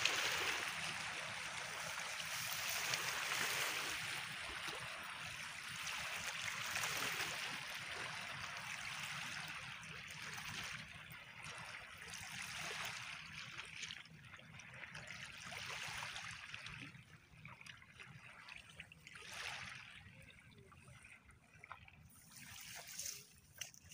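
Water washing and trickling over a pebbly shore: a hiss that swells and fades every three to four seconds, growing fainter in the second half.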